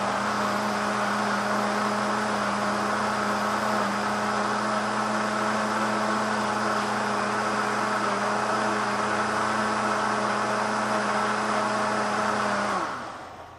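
Countertop blender motor running steadily, blending a thin liquid of water, lemon juice, garlic and fresh mint leaves. Near the end it is switched off and the motor winds down with a falling hum.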